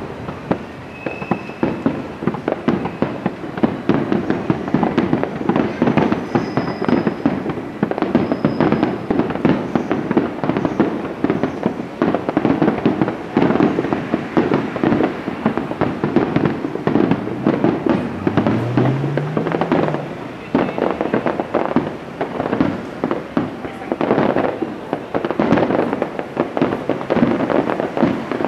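Aerial firework shells bursting overhead: booms and crackling in quick succession with no pause.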